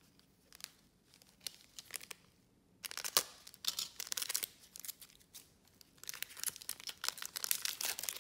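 A foil Panini Select baseball card pack being torn open and its wrapper crinkled by gloved hands. A few light handling clicks come first, then about three seconds in the tearing and crinkling starts and gets busier near the end.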